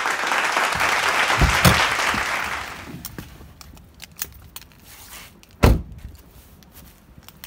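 Someone getting out of a car: a steady hiss of noise for the first three seconds with a couple of low thumps about a second and a half in, then one loud, sharp thump a little before six seconds.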